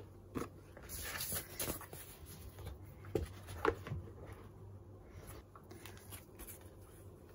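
Paper, cardboard and plastic wrapping being handled: a ring-binder photobook closed and slid into its cardboard box, with soft rustling and a few light knocks, the loudest about three and a half seconds in.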